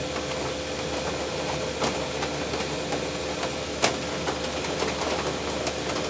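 Diesel air heater running steadily on undiluted filtered waste engine oil: an even rush from its combustion fan and burner with a faint steady hum, and a couple of faint clicks.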